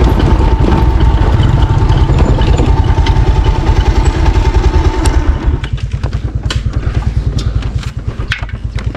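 Motorcycle engine running on a rough dirt trail with scattered knocks and rattles. About five and a half seconds in, the engine drops to a lower, quieter run while the clatter goes on.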